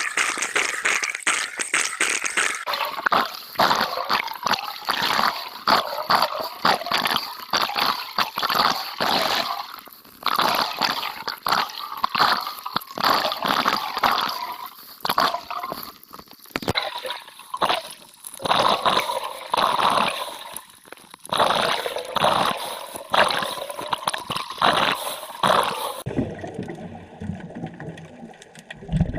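Underwater recording of a scuba diver's exhaled bubbles gurgling in irregular bursts that swell and fade every few seconds.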